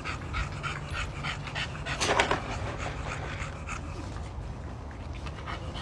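Bulldog panting, quick and rhythmic, with a louder burst about two seconds in.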